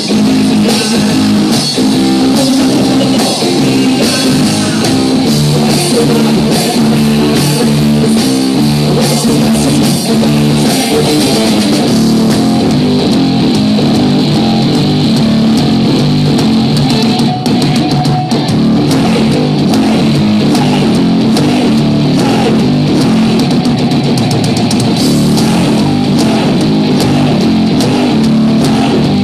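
Electric guitar and drum kit playing loud rock music live.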